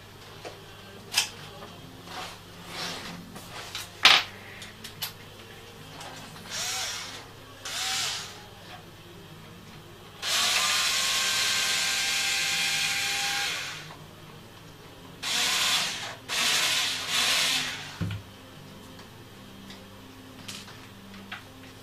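A small cordless screwdriver drives a screw into the wooden frame of a music box. It runs steadily with a whine for about three seconds, then gives three shorter bursts. Scattered clicks and knocks of parts being handled come before it.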